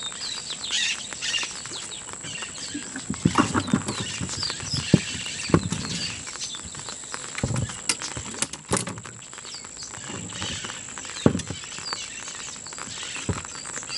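Light rain pattering on a lake surface, with irregular splashes and thumps from a large tilapia being fought on a bamboo pole. A steady high-pitched whine runs underneath.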